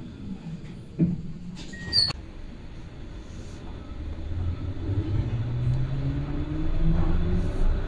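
Tram's electric traction motors whining, rising steadily in pitch and growing louder as the tram pulls away and gathers speed, heard from inside the car. Earlier, two knocks and a short electronic beep come about one and two seconds in.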